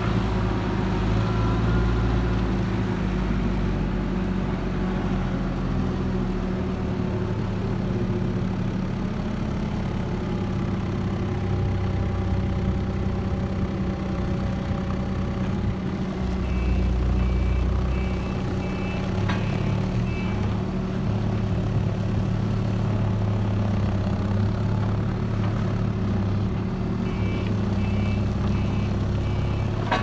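Diesel engine of a Dieci telehandler running steadily while its boom works, with a run of short reversing-alarm beeps a little past halfway and again near the end.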